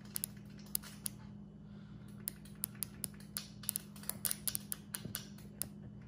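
Ignition coil from a Ford flathead, jumpered to a battery, firing a grounded spark plug: irregular sharp snapping clicks as sparks jump the plug gap each time the jumper wire touches the coil post. There are a few clicks at first and many quickly from about two seconds in. The blue spark shows the coil works.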